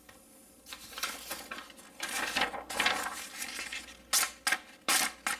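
Folding knife blade slicing through paper in a sharpness test, making repeated rasping, hissing strokes. It ends with several sharp clicks near the end.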